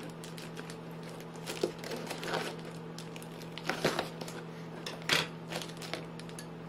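Scissors cutting slits through Reflectix foil-bubble insulation and foil tape: a handful of crisp snips and foil crinkles, the loudest a little after five seconds, over a steady low hum.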